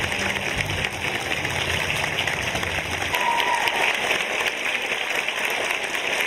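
Audience applauding as a dance number ends; the music's low notes carry on under the clapping and stop about three seconds in.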